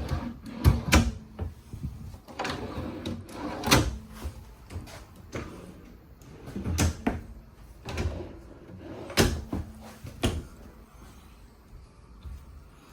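RV kitchen drawers and cabinet doors being opened and shut: a series of irregular knocks and clunks, about ten in all, thinning out near the end.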